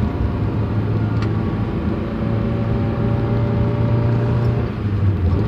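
Honda car's engine running steadily at a cruise, heard from inside the car, with a faint click about a second in.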